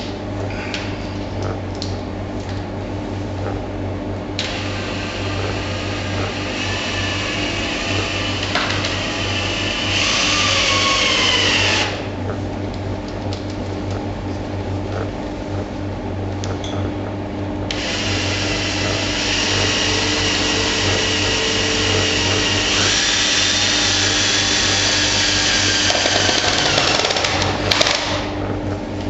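Cordless drill running as its bit bores into the toe of a leather sneaker, in two long runs of whining motor sound; near the end of the first run the pitch falls as the bit bites in. A steady low hum lies underneath throughout, and there are a few clicks near the end.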